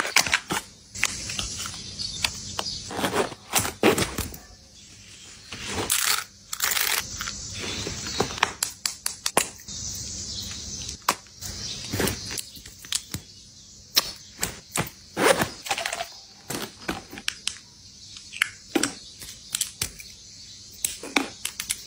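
Long fingernails tapping and clicking on cosmetics packaging (a cardboard box, a lipstick tube) and on a leather handbag, in irregular taps and quick runs, with brief stretches of handling rustle.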